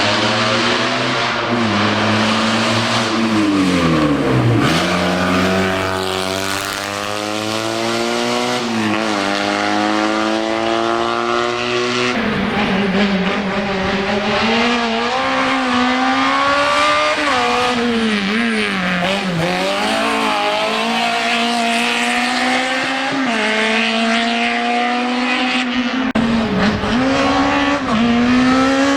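Race car engine under hard acceleration, its pitch climbing through the gears and dropping sharply again and again as the driver lifts, brakes and changes down through the slalom chicanes.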